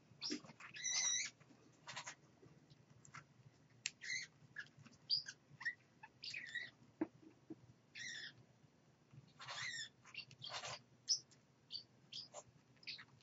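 Small pet parrots chirping and squeaking in short, high calls that come irregularly, at times several a second. Some calls are clear and some raspier, over a faint low hum.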